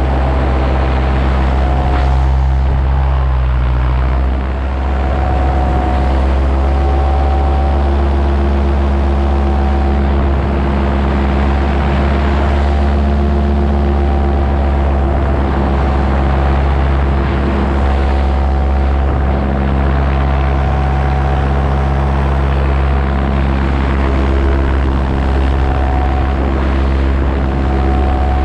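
Paramotor engine and propeller running steadily in flight, with a short dip in level about four seconds in.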